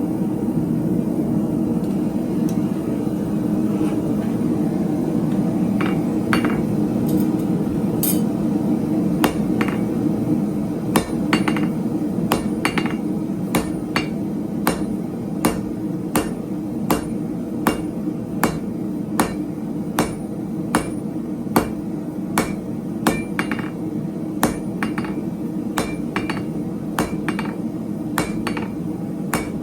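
Hand hammer striking 3/8-inch square steel stock on an anvil while forging it into a leaf. The sharp, ringing blows start sparsely about six seconds in, then settle into an even rhythm of a little over one blow a second, all over a steady low rushing noise.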